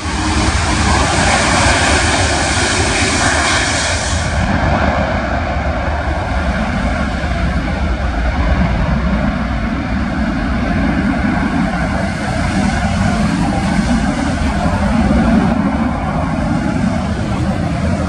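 Jet engines of an Airbus A330 airliner running steadily near the runway, with wind buffeting the microphone as a deep gusting rumble.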